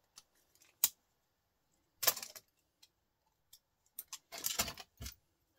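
Pliers cracking apart small plastic-and-brass electrical scrap, with sharp clicks and snaps and small metal bits clattering onto a sheet-metal bench top, in a few short bursts about two seconds and four and a half seconds in.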